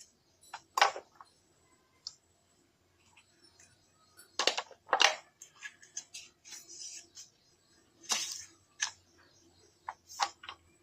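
A handful of sharp clicks and knocks, loudest a little under a second in and around four and a half to five seconds in, typical of small hard plastic and metal parts being handled and set down.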